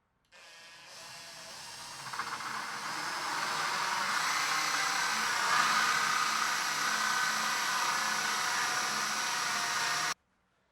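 Power tool running steadily, starting suddenly and growing louder over the first few seconds, then cutting off abruptly about a second before the end.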